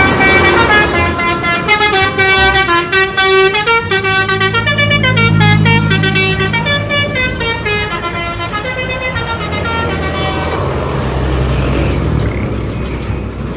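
Multi-tone 'telolet' bus horn playing a stepping tune of held notes over a running engine; the horn tune dies away about ten seconds in while the engine carries on.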